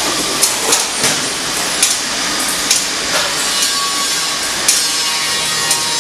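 Packaging machine for fasteners running: a steady hissing mechanical noise with irregular sharp clicks and clatter of small metal parts, roughly one every second.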